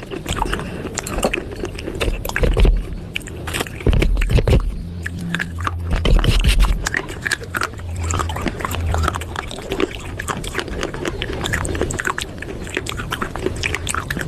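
Close-up chewing and crunching of baked clay pot pieces, a dense run of sharp, irregular crackles, with a few heavier low thuds partway through.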